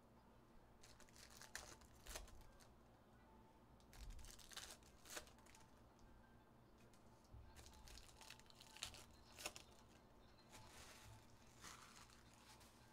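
Faint tearing and crinkling of foil trading-card pack wrappers as packs are opened and cards handled, in short, scattered bursts.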